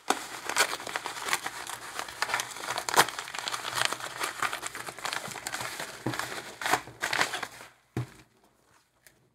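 Kraft paper mailer envelope crinkling and rustling, with many sharp crackles, as a book is pulled out of it. Near the end the crinkling stops and there is a single soft knock as the book is laid on the desk.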